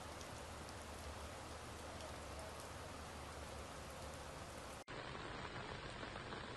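Heavy rain falling steadily, an even hiss with no other distinct sounds. About five seconds in, it cuts out for an instant, then carries on a little louder.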